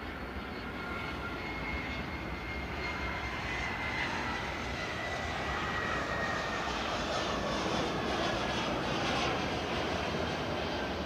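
Jet airliner engines running, with a high turbine whine that slowly falls in pitch over a broad rushing noise, swelling somewhat louder toward the end.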